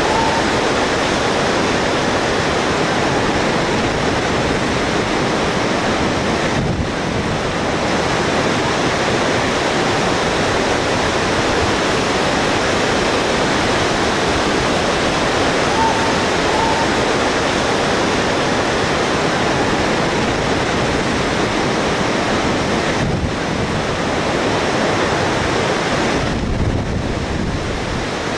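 Steady rush of a fast, turbulent whitewater river far below, with wind on the microphone.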